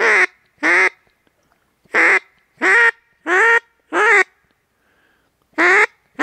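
A duck quacking loudly: about eight separate quacks in an uneven series, with a pause of about a second and a half before the last two.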